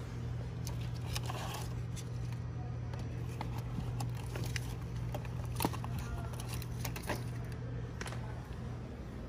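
A steady low hum, with scattered light clicks and rattles as small LED lanterns hanging by key rings are picked up and handled on a shelf.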